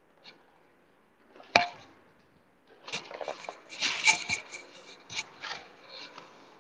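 Handling noise in a small room: a single sharp knock about one and a half seconds in, then a few seconds of scraping and rustling.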